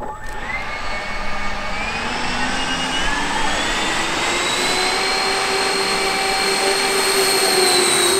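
Jet engines spooling up: a whine that climbs in pitch over the first few seconds, then holds steady over a rushing noise.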